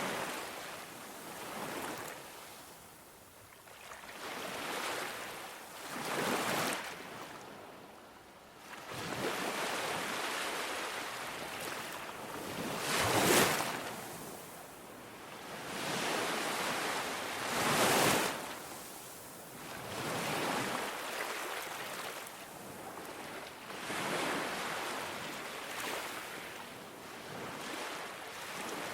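Ocean surf breaking on a beach: waves rush in and wash back in repeated surges every few seconds. The loudest breakers come about halfway through and again a few seconds later.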